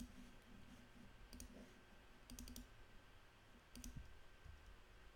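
Faint clicks of a computer mouse: a few scattered clicks, some in quick pairs, over quiet room tone.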